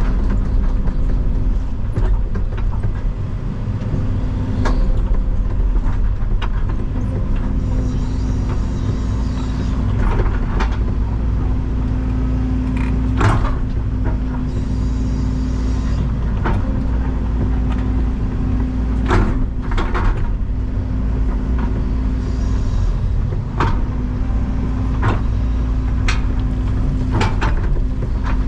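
Excavator engine running steadily under load while digging, with repeated knocks and clanks of the bucket working soil and stone, and a few stretches of hiss.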